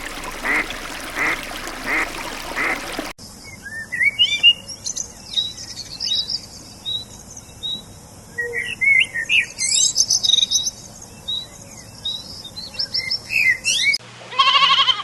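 A duck quacking in a steady run, about a quack and a half a second, then an abrupt cut to small birds chirping and twittering, with many short quick notes, for about eleven seconds. Near the end a goat starts to bleat with a wavering call.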